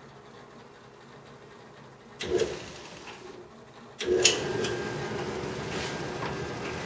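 1974 Whirlpool portable clothes dryer starting up: a short mechanical burst about two seconds in, then about four seconds in the motor and drum start and run steadily with a clicking, vibrating rattle. The rattle comes from a bad idler pulley.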